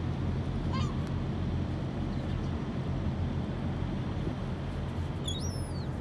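Herring gulls calling: a short call a little under a second in and a high, sweeping call near the end, over a steady low rumble.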